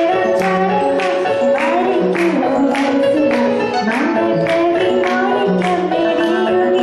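A woman singing a Malayalam song into a microphone over musical accompaniment with a steady beat of about two strokes a second.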